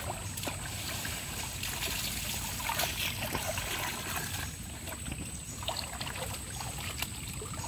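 Shallow muddy water sloshing and trickling as a wet mesh fish-trap net is lifted and shaken, with water draining from the net and scattered small splashes over a low steady rumble.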